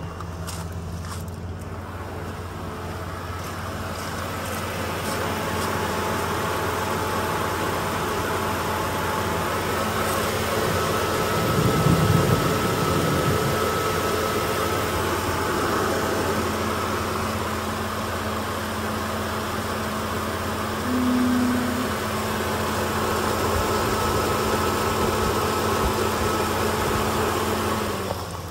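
2004 Dodge Dakota pickup's engine idling steadily, heard under the open hood, with a brief louder swell about twelve seconds in.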